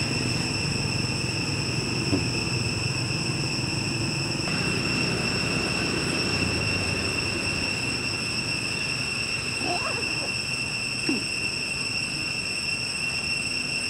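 Steady outdoor background: a constant high-pitched insect drone over a low rumble, with a faint short chirp about ten seconds in.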